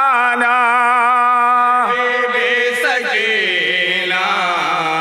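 A man chanting a noha, a Shia lament, stretching the last word of the line into a long held note with a wavering pitch. From about three seconds in, his voice slides down and holds a lower note.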